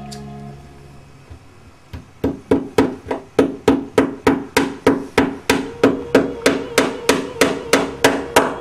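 Small wooden-handled hammer driving a nail into a nail-studded art panel: a couple of light taps, then a steady run of sharp strikes, about three a second, each with a short ring.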